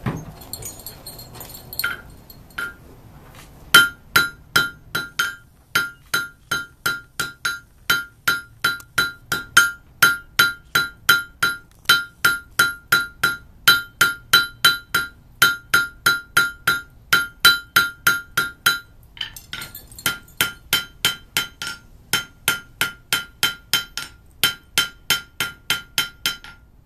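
Blacksmith's hand hammer striking a red-hot stainless steel bar on an anvil to draw out a point. The blows come steadily at about three a second, each with a bright anvil ring. They start about four seconds in after a couple of light taps, and pause briefly about two-thirds of the way through before resuming.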